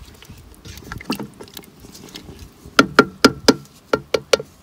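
Wooden spoon stirring a thick, chunky broth in a stainless steel pot, a wet sloshing scrape. Then about seven quick taps of the spoon on the pot's rim, four and then three, each ringing briefly.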